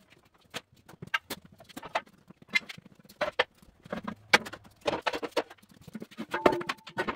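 Heavy metal plates being shifted by hand: irregular clanks, knocks and scrapes of metal on metal, with a brief ringing clang about six and a half seconds in.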